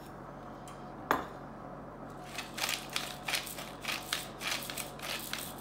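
Pepper mill grinding pepper over a pot of potatoes: a run of quick, irregular grinding strokes that starts about two seconds in, after a single sharp knock about a second in.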